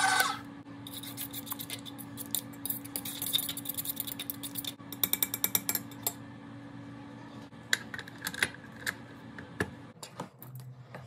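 A stand mixer's motor cuts off at the start. Then a metal fork clicks and scrapes against the stainless-steel mixing bowl, with a quick run of taps about five seconds in and scattered clicks after.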